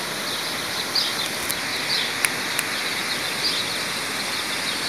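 Night-time outdoor ambience: a steady hiss with a short, high call repeating about once a second, and a few sharp clicks in the middle.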